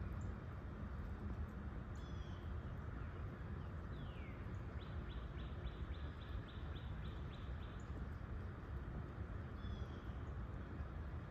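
Wild birds calling: a short high falling call repeated every few seconds, a downward-sliding note about four seconds in, then a rapid trill of about a dozen notes lasting some three seconds, over a steady low rumble.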